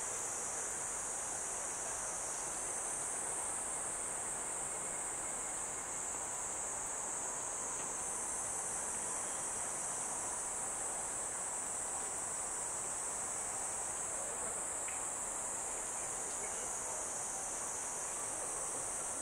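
A steady, high-pitched chorus of insects, its level swelling a little a couple of times, over a low, even background hiss.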